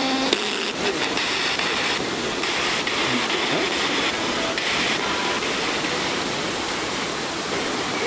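A waterfall's steady rush of falling water, with a brighter hiss laid over it that switches abruptly on and off several times.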